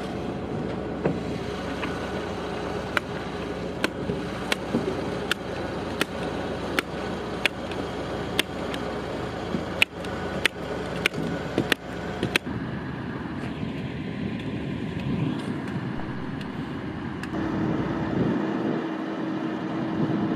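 Hand staple gun snapping about fifteen times, roughly once a second, fastening a felt insulation strip to an OSB floor, over a steady background noise. About twelve seconds in the stapling stops and a truck-mounted crane's engine runs, with a steady hum joining in near the end.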